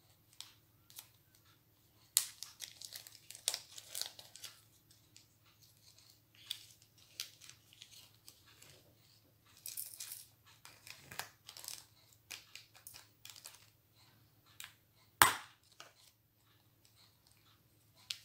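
Small plastic bag of diamond-painting drills crinkling as it is opened and handled over a plastic storage box, with scattered light plastic clicks and one sharp click late on.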